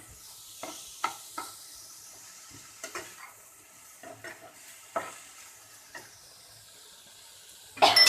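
Chopped cabbage and mixed vegetables frying in a pan with a faint sizzle, stirred by a utensil that knocks and scrapes against the pan now and then. A louder clatter of utensil on pan comes at the very end.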